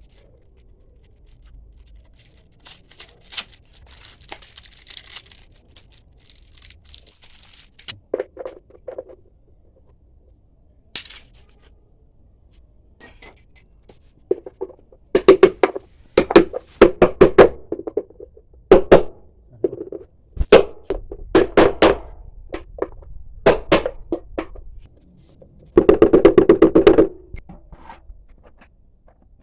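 Repeated hard knocks, hammer-like blows in irregular runs, typical of driving a worn drum bearing out of or into a washing machine's bearing housing. The blows come thick and fast for about a second near the end.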